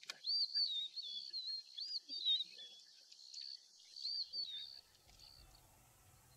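Wild birds calling and singing in quick, looping, warbling phrases, with a single sharp click at the start. The bird calls stop about five seconds in, leaving only a faint low hum.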